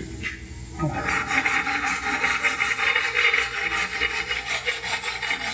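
Hand file scraping along the edges of a forged steel sidebone horseshoe clamped in a shoe vise, in fast, continuous strokes starting about a second in.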